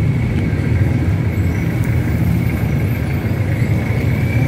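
City street traffic: a steady low rumble of cars and vans going by, with a thin, steady high whine over it.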